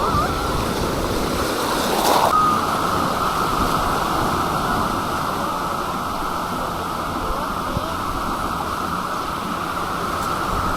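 Steady wash of ocean surf breaking on a beach, mixed with wind, with a louder surge about two seconds in.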